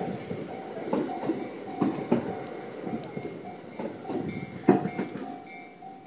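A train passing close by at speed, its wheels clacking over the rail joints, while a level-crossing warning bell rings in short, evenly repeating tones. The train noise fades near the end as it clears the crossing.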